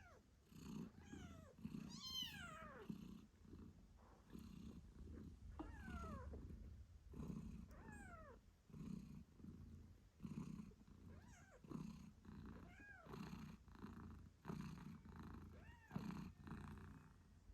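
British shorthair mother cat purring, in low pulses about once a second with each breath. Over it come several high, squeaky kitten mews, each sliding down in pitch.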